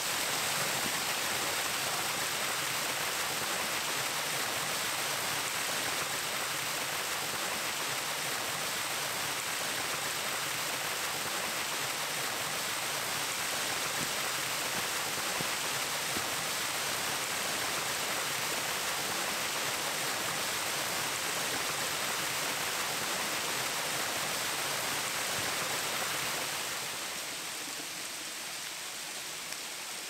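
Steady rush of water from a small waterfall spilling out of a stone aqueduct wall. It eases a little near the end.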